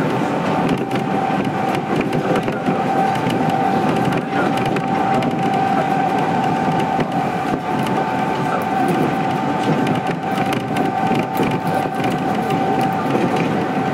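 Kintetsu 1220 series electric train running at speed, heard inside the car: a steady rumble of wheels on track with a constant whine throughout and frequent small clicks and rattles.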